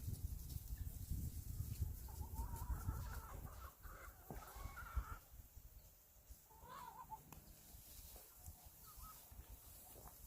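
Chickens calling: a drawn-out call of about three seconds, then a shorter call a couple of seconds later, over a low rumble during the first few seconds.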